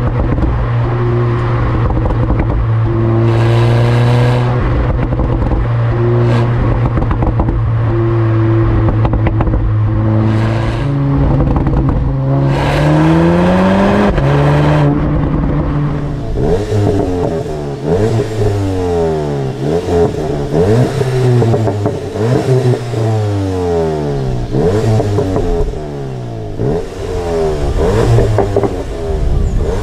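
Exhaust of a VW turbocharged four-cylinder performance car, holding a steady engine speed for the first dozen seconds with a few short noisy bursts over it. The note rises about twelve seconds in, and from about sixteen seconds on it rises and falls again and again as the engine is revved.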